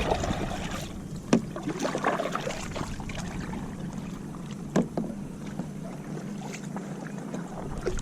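Knocking and handling noises on a kayak: two sharp knocks, about a second in and again near five seconds, with fainter clatters and the wash of water and wind.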